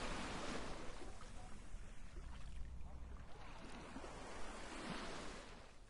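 Ocean surf washing as an even rushing noise, slowly fading out: the sea soundtrack at the close of an ocean-plastic campaign clip.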